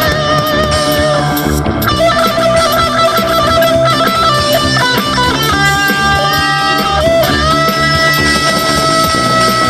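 Rock music with an electric guitar lead: bending, sustained notes over bass and a steady drum beat, with long held notes near the end.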